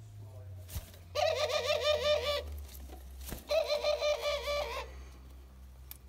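White domestic dove cooing twice, each call a rolling, wavering coo of a little over a second.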